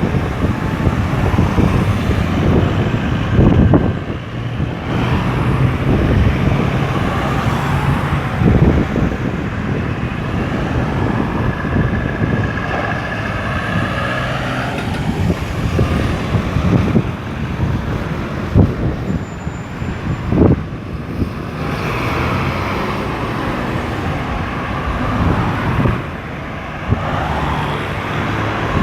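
Road traffic: a steady stream of motor vehicles passing, their engines rising and falling in pitch as they slow and pull away.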